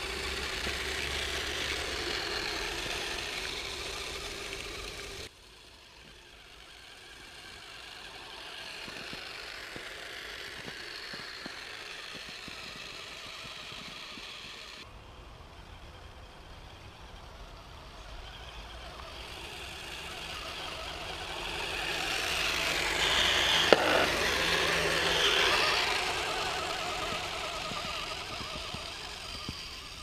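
Electric motors and gear trains of a three-motor radio-controlled scale snowcat, running as it drives through deep snow. The sound cuts off abruptly twice, and it grows louder and noisier for a few seconds late on, with one sharp click in that louder stretch.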